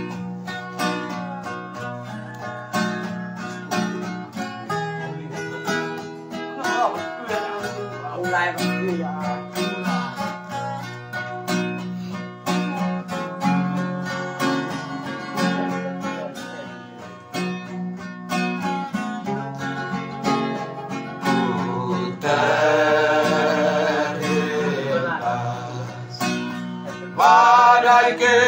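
Acoustic guitar playing an introduction, plucked bass notes under chords. About three-quarters of the way through, a group of men starts singing in parts, breaks off briefly and comes back louder near the end.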